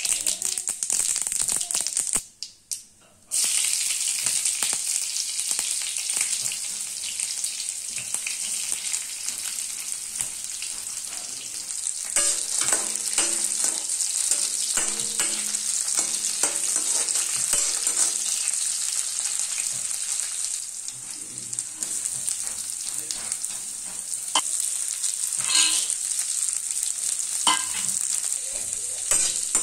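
Whole spices and then chillies sizzling steadily in hot oil in a steel kadhai, the sizzle dropping out for about a second near the start. From about twelve seconds a metal slotted spoon scrapes and clicks against the pan as the tempering is stirred.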